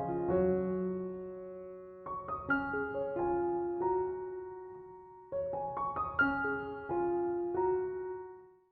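Slow, gentle background music on piano: single notes and chords struck and left to ring and die away, with new phrases entering about two and five seconds in. The music fades out at the end.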